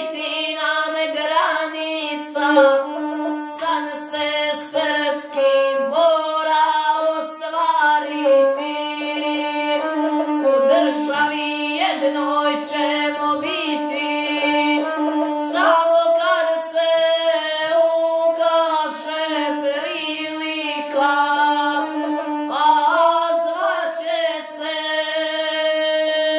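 A boy singing a South Slavic epic song in the guslar style, accompanying himself on the gusle, a bowed single-string folk fiddle. The bowed string holds a steady low tone under an ornamented, wavering vocal line.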